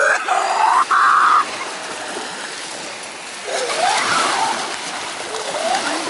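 Children shouting and splashing as they run into shallow sea surf, with small waves washing onto the sand. The shouts are loudest in the first second and a half and come again about midway and near the end.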